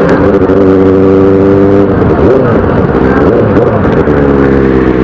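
Benelli motorcycle engine and exhaust running at road speed, heard from the rider's seat. The engine note is steady, dips and rises again about two seconds in, then holds steady.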